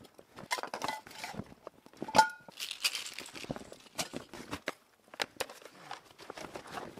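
Camping gear clattering as it is handled: irregular knocks, rustles and footfalls, with one sharp metallic clink that rings briefly about two seconds in.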